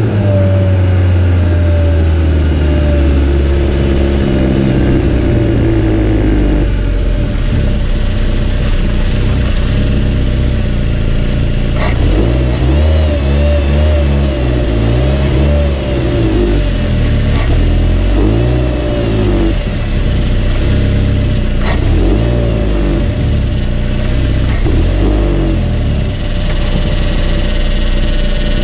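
Turbocharged Mazda MX-5 NC 1.8 four-cylinder engine heard close up at the turbocharger and open cone intake filter while driving: steady running for the first several seconds, then repeated rises and falls in revs, with a higher turbo whistle rising and falling with them. Two sharp clicks come about twelve and twenty-two seconds in.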